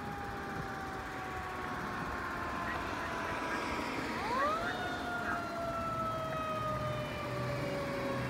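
Fire engine's siren wailing: its pitch falls slowly, sweeps quickly back up about four seconds in, then falls slowly again.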